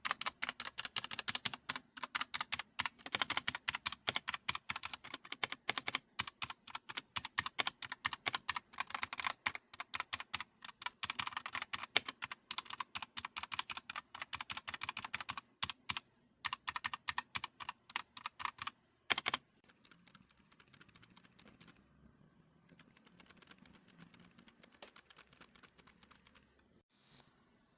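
Rapid, continuous typing on a Redragon Castor K631 Pro mechanical keyboard, dense key strokes that stop about two-thirds of the way through, followed by only faint, soft tapping.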